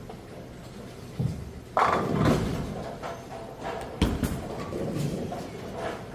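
Bowling alley din with balls striking the lane and pins: a few sudden loud knocks and clatters, the sharpest about two and four seconds in, each dying away.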